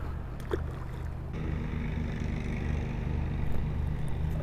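A steady low hum of an idling engine, with one light click about half a second in.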